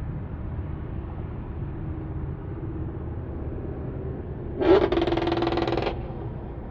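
Steady road and engine rumble inside a car cruising at highway speed. About two-thirds of the way through, a louder sound with a steady pitch cuts in for just over a second.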